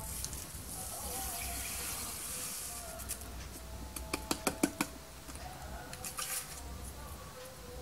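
Granulated sugar pouring from a plastic container into a bowl of milk and coconut milk, a steady hiss for the first few seconds. A quick run of sharp clicks follows about four seconds in, then a couple of shorter pours.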